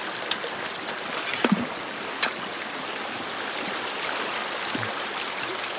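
Shallow creek running over stones and gravel: a steady rush of flowing water, with a couple of faint clicks about a second and a half and two seconds in.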